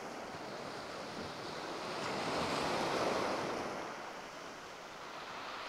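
Sea surf on the beach: a wave swells in to a peak about halfway through and then washes back down, over a steady wash of sea.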